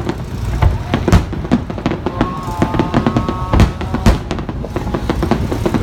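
Fireworks exploding: an irregular run of sharp bangs, about two a second, with a few held higher tones between them.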